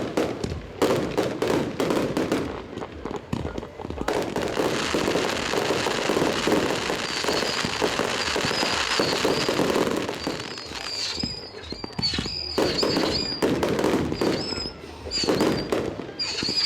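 Fireworks display going off: a series of sharp bangs, then a dense stretch of crackling, then more bangs. From about the middle on, a high wavering whistle runs through it.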